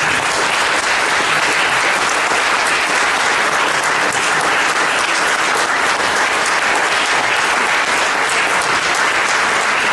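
Sustained applause from an audience filling a hall: dense, steady clapping from many people.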